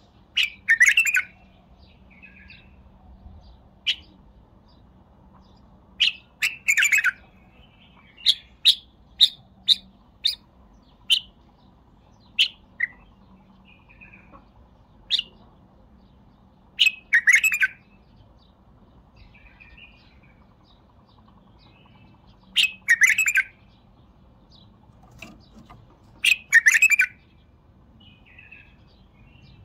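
White-eared bulbul singing: short, loud chattering phrases every few seconds, with a run of clear single whistled notes between about eight and eleven seconds in.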